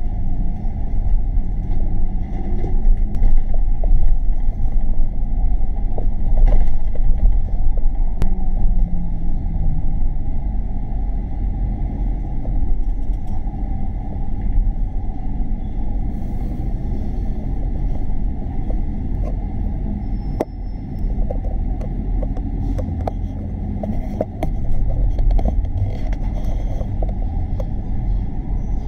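Steady rumble of a moving city bus heard from inside its cabin: engine and road noise, with scattered small rattles and clicks.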